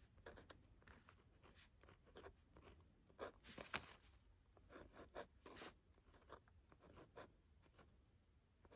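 Faint scratching of a pen tip writing letters in short strokes, with a few louder strokes near the middle.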